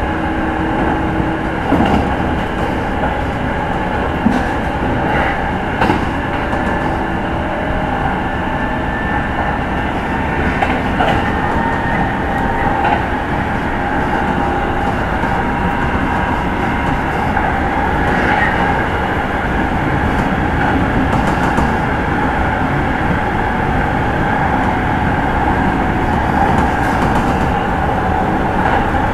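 Running sound of a Kintetsu 30000-series Vista Car motor car at speed, heard inside the carriage: a steady rumble of wheels and running gear with a steady whine. A few knocks over rail joints come in the first seconds.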